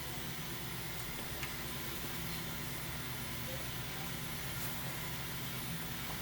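Room tone: a steady low hum under an even hiss, with no distinct events.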